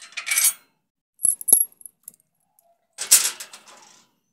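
Steel washers clinking onto threaded bolts and a steel bracket: a short scrape at the start, two sharp ringing clinks about a second and a half in, then a rattling clatter at about three seconds that dies away.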